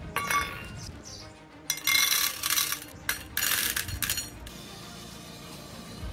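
A stainless steel bowl is set down on a metal safe lid with a clink, then small hard pellets are poured into it, rattling and clinking against the steel twice for about a second each. Background music plays throughout.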